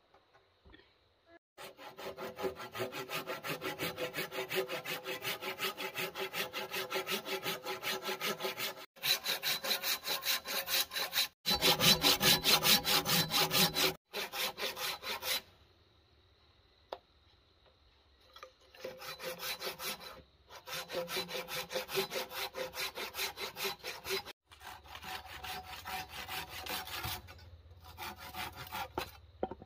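Rapid, even back-and-forth scraping strokes, about three or four a second, in several bouts broken by short pauses and one longer pause about halfway through.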